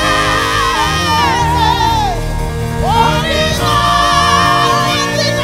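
Live gospel praise music: a lead singer and backing vocalists singing loudly with wavering, sliding notes over a band's steady low accompaniment.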